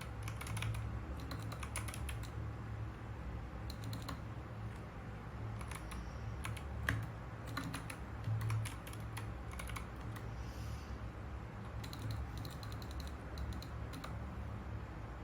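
Typing on a mechanical keyboard: runs of quick key clicks in bursts with short pauses between them, over a steady low hum.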